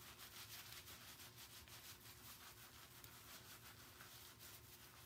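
Faint, quick, irregular rubbing of soapy wool in gloved hands as a wool-wrapped soap bar is kneaded to felt the wool onto the bar.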